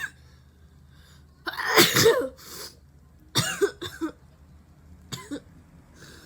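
A woman sneezing several times in a row, the loudest fit about two seconds in and a smaller one near the end, set off by a nasal swab.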